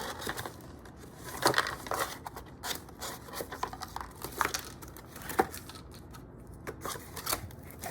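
Rummaging through a box and its packaging by hand: scattered rustles, scrapes and light clicks, with a few sharper handling knocks.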